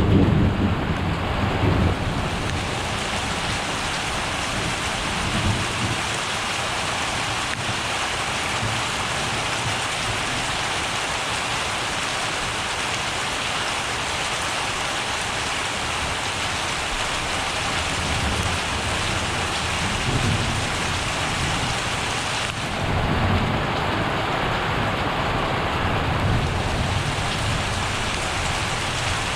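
Thunderstorm: steady rain falling, with thunder. A loud rumble dies away over the first couple of seconds, and another low rumble rolls in from about twenty seconds in.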